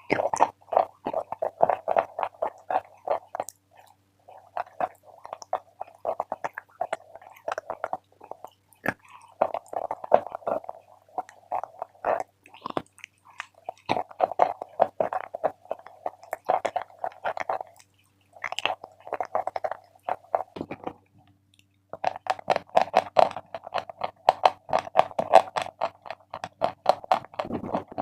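Close-up chewing of Big Love edible chalk: rapid, crisp crunches in runs of a few seconds, broken by short pauses between bites.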